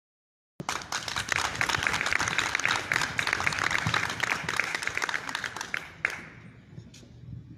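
A small group of people clapping. It starts suddenly about half a second in and dies away about six seconds in.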